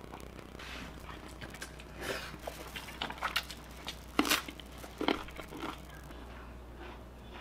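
Person eating: several crisp, crunchy bites and chewing of a raw carrot, irregularly spaced, the loudest a little over four seconds in.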